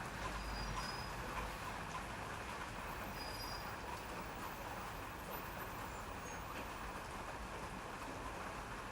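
Steady rain falling, an even hiss, with a low rumble underneath in the first second.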